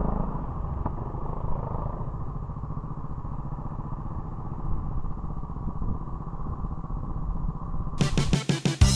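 Trail motorcycle engine running steadily at low revs, heard from a camera mounted on the bike. Music starts abruptly about eight seconds in.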